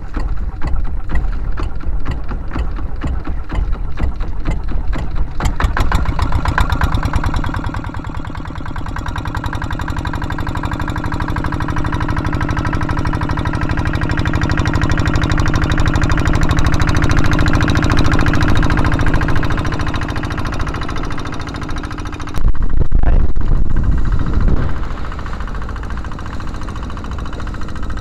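Kubota single-cylinder diesel engine of a small outrigger fishing boat running under way with a fast, even firing pulse, growing louder through the middle. About three quarters of the way in, a sudden loud rush of noise covers it for a couple of seconds.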